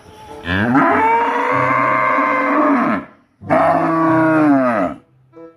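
A cow mooing twice, two long drawn-out moos, the first about two and a half seconds and the second about a second and a half, each dropping in pitch as it ends; a short faint tone follows near the end.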